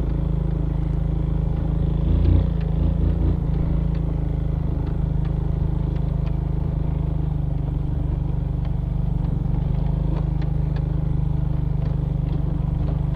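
Suzuki Smash Revo's small single-cylinder four-stroke engine running at a steady pitch as it climbs a rough dirt track, with light rattles and clicks from the bike jolting over the stones.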